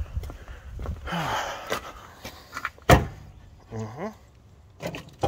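Footsteps and handling noise, then a car battery set down in the engine bay with a single sharp knock about three seconds in.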